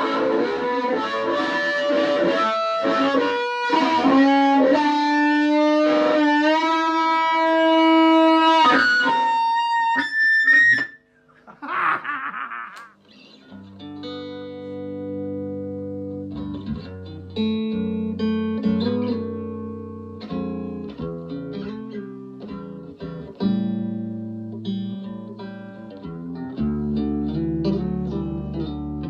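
Electric guitar music. A sustained single-note line with bent notes comes first, then a short noisy passage, then chords over a steady bass line.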